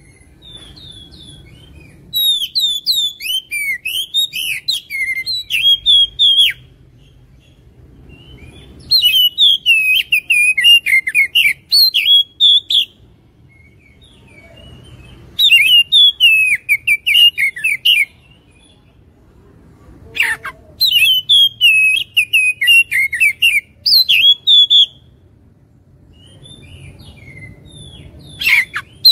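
Oriental magpie-robin (kacer) singing in loud bouts of rapid, varied whistled notes that slide up and down. There are four bouts of a few seconds each with short pauses between them, and a fifth starts near the end.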